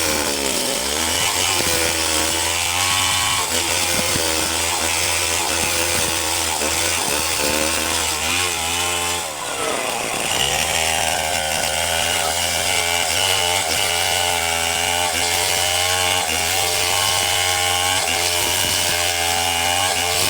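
Wood lathe running with a turning tool cutting the spinning wood: a steady motor hum under a wavering cutting whine, with a brief dip about nine seconds in.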